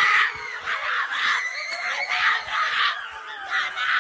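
A group of people screaming in celebration of a goal, several voices shouting at once, loudest right at the start.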